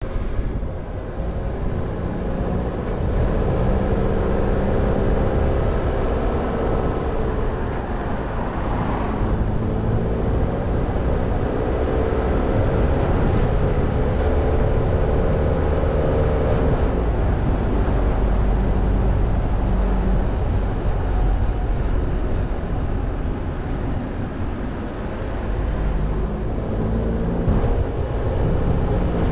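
A car being driven on a road: a steady low rumble of road and tyre noise, with the engine note climbing, dropping back and climbing again.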